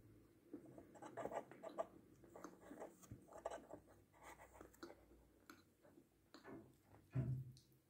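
Close-mouthed chewing of chocolate sweets: soft, irregular wet clicks and small crackles. Near the end there is one brief, louder, low mouth sound.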